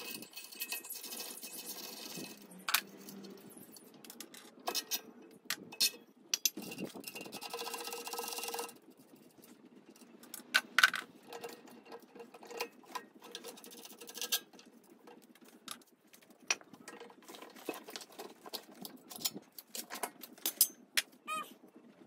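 Scattered metallic clicks, knocks and rattles of hand tools and pressed-steel parts as the wheeled stand is unbolted and pulled off a small electric concrete mixer, with two longer stretches of hiss-like scraping in the first nine seconds.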